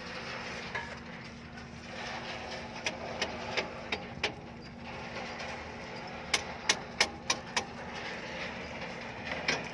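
Sharp clicks and taps from hands fixing sensor wiring in place in an excavator engine bay: a run of about five a few seconds in, a louder run of about five, roughly three a second, past the middle, and a few more near the end, over a steady low hum.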